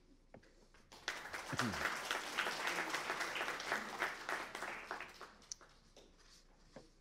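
Audience applauding. The clapping starts about a second in and dies away after about five seconds.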